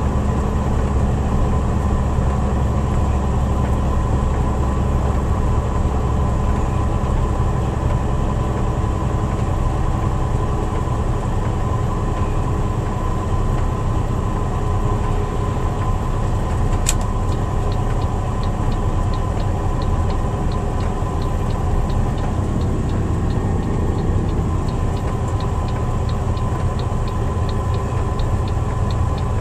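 Steady low drone of engine and road noise inside a truck cab at highway speed. About seventeen seconds in there is a sharp click, and then a quick, regular ticking keeps going over the drone.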